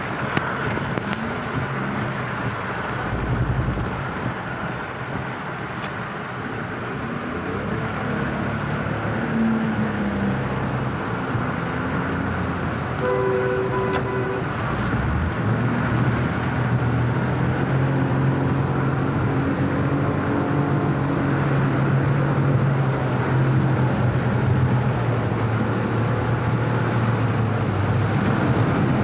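Heavy rain falling on a car's roof and windshield, heard from inside the cabin, over the low steady hum of the car's engine.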